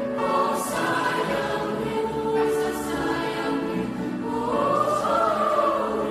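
Mixed-voice youth choir singing in parts, holding sustained chords with soft 's' consonants, and a high line rising and falling over the lower parts in the second half.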